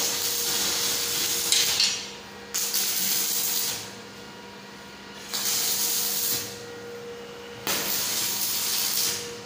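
Electric arc welding on a steel flat bar: four separate bursts of hissing arc, each about one to two seconds long, with short pauses between them.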